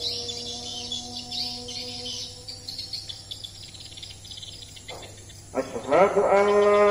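Swiftlet twittering: a fast run of high chirps that thins out after about three seconds over a fading held tone. Loud music with a sustained droning note comes in about five and a half seconds in.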